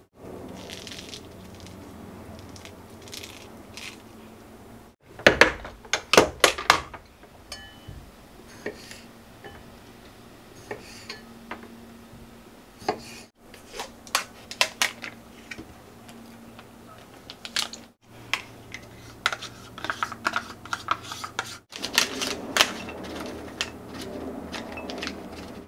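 Kitchen prep sounds in short cuts: fingers peeling and pulling apart a grapefruit, a knife tapping through green grapes onto a wooden cutting board, and near the end mixed nuts and dried fruit poured from a packet, clattering into a glass bowl.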